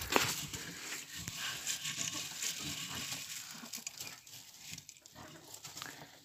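Dry rustling and crunching of straw and shelled corn kernels as a hand works in a rabbit feeder, with a sharp knock at the start; the rustling dies down after about four seconds.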